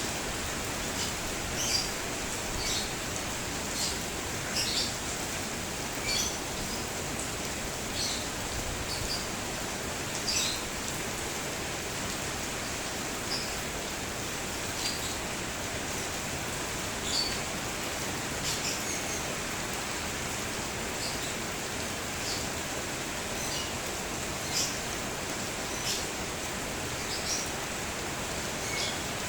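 Steady rain falling, with small birds chirping in short, high calls every second or two.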